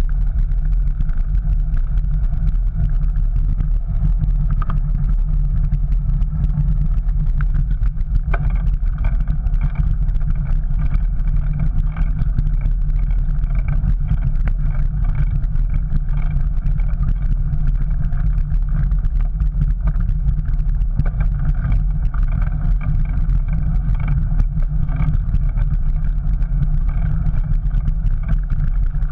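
Steady low rumble of wind buffeting the microphone and tyre noise from a bicycle ridden on paving, picked up by a bike-mounted GoPro.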